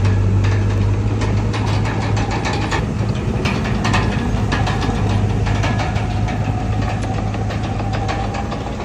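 Komatsu D31PX crawler bulldozer's diesel engine running steadily, with frequent knocks and clanks from the machine at work.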